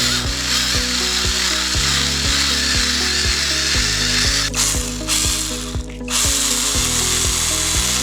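Cordless battery chainsaw running with a steady high-pitched whir, cutting out briefly twice around the middle, over background music with a steady beat.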